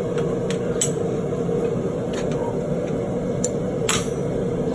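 A steady low rushing noise under a few light metallic clinks of steel and tools being handled; the sharpest clink comes about four seconds in.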